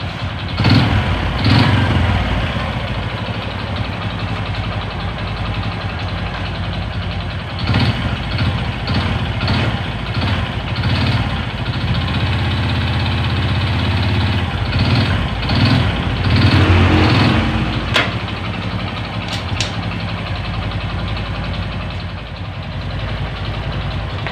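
Honda Supra 125 single-cylinder four-stroke engine running, revved up in short bursts several times, with a rattling 'klak klak klak' knock likened to a worn connecting rod and a slight whine.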